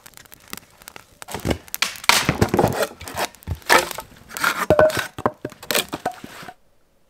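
Dry sticks and twigs snapping and crunching in irregular bursts as firewood is handled and broken, with faint small clicks before them. The sound cuts off suddenly near the end.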